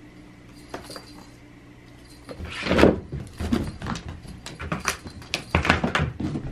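A cat playing with its toys: scattered clicks and knocks of toys and paws, with one louder, longer sound about three seconds in.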